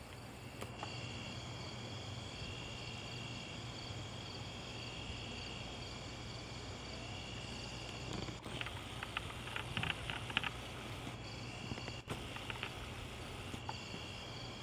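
Insects chirping in high trills, one of them coming and going every second or two, over a steady low hum. About eight seconds in there are a few seconds of scratchy clicking.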